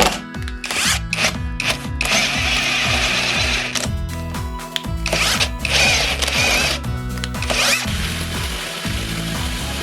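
Background music over a power tool running in short bursts, with several quick knocks in the first two seconds.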